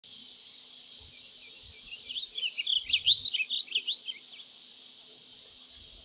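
Male blue grosbeak singing one quick warbling phrase of jumbled rising and falling notes, starting about a second in and lasting a little over three seconds, loudest in the middle.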